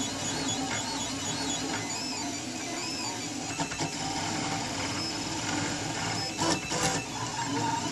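Printrbot Simple Metal 3D printer running a print: its stepper motors whine in shifting tones that rise and fall as the hot end moves back and forth, with a few short clicks about two thirds of the way through.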